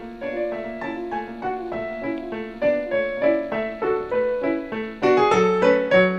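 Piano background music: a gentle run of single struck notes that grows louder and fuller about five seconds in.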